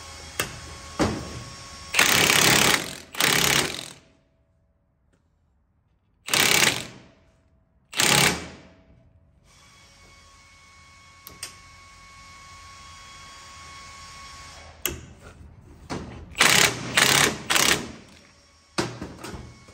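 Milwaukee cordless impact wrench hammering in several short bursts, about eight, as it runs down the top mount nut on a coil-spring strut that is held compressed in a spring compressor. There are a few light tool clicks between the bursts.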